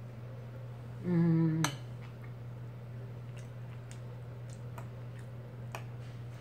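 A fork clicking and tapping against a food tray and plate while eating, a few light scattered clicks. About a second in comes a short hummed 'mm' from the eater. A steady low hum runs underneath.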